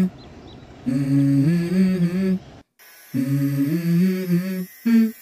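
Music: a low hummed vocal phrase of a few stepped, held notes, repeated three times with short pauses between.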